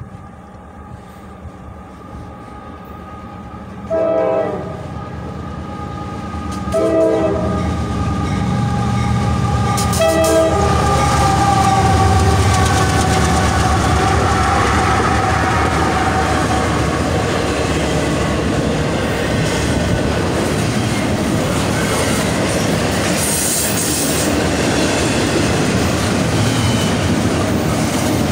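Diesel-hauled CSX intermodal freight train approaching and passing: three short horn blasts a few seconds apart, then the three locomotives going by, louder and falling in pitch as they pass, followed by the double-stack container cars rolling past with a steady rumble of wheels on rail.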